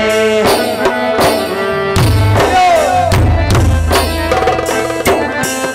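Instrumental interlude of live Gujarati folk music: tabla-style hand drums beat a steady rhythm under a sustained melody instrument.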